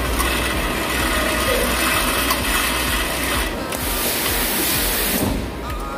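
Automatic car-parts machine running steadily in the factory, a continuous mechanical clatter with a faint whine, as nuts are fed into it by hand. A short hiss comes about three and a half seconds in and again just past five seconds.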